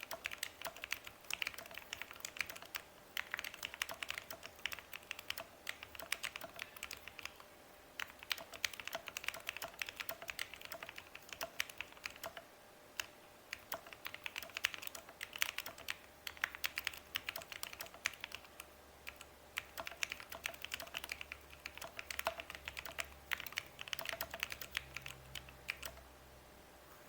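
Typing on a Monsgeek M1 mechanical keyboard with Gateron Black Ink V2 linear switches, cherry-profile keycaps and stock stabilizers: fast runs of keystrokes broken by a few short pauses.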